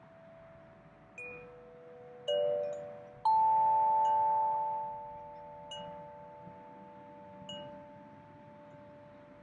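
Large wind chime with long tubes, struck by its clapper as it sways: a handful of separate strikes, the loudest a little over three seconds in, each note ringing on for several seconds so the tones overlap.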